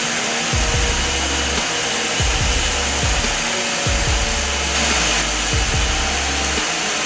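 Background music with a pulsing deep bass line under a steady, loud rushing noise.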